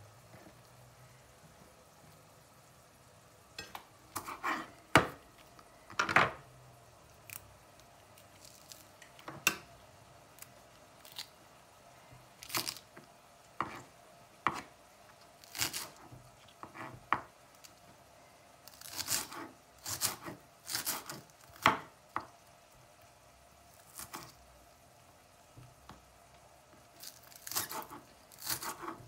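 Kitchen knife chopping spring onion on a wooden cutting board: irregular knocks of the blade against the wood, some single and some in quick runs, starting a few seconds in.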